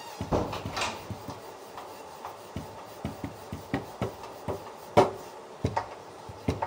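Hands kneading and pressing a ball of roti dough on a board: soft rubbing with irregular light knocks, the loudest about five seconds in.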